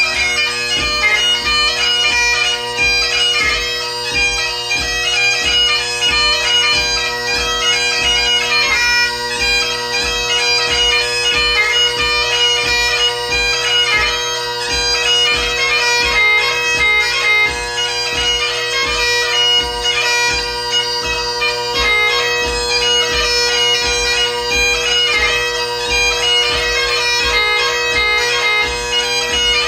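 Solo Great Highland bagpipe playing a tune: the drones hold a steady unbroken chord beneath the chanter's moving melody.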